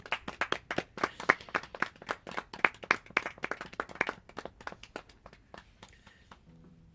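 A small group of people clapping, individual claps audible, thinning out and dying away about six seconds in.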